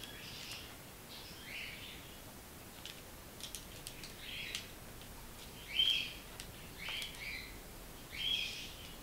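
White cockatoo giving a string of short, scratchy calls, a little under one a second, while it works, with a few faint ticks around the middle.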